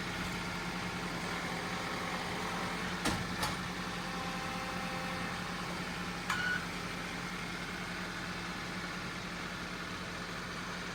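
An engine idling steadily, with a few sharp clicks: two about three seconds in, one more a few seconds later.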